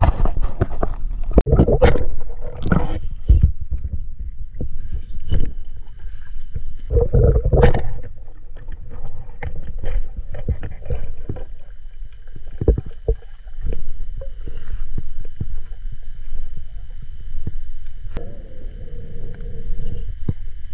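Water splashing and sloshing as someone moves through it, with irregular knocks and thumps, heaviest in the first eight seconds. A faint steady high whine runs underneath from about five seconds in.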